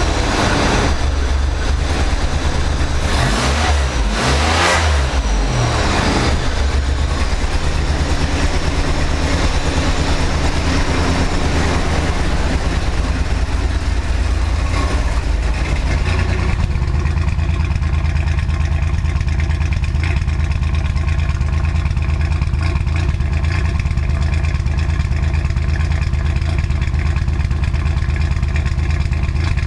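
GM 3.4-litre SFI V6 running cold at idle: a steady low engine note, with several louder surges in the first six seconds and the hissy upper layer thinning out about sixteen seconds in. The owner says the engine runs rough, farting and popping, only when cold, and suspects a wire missed when he cut down the wiring harness.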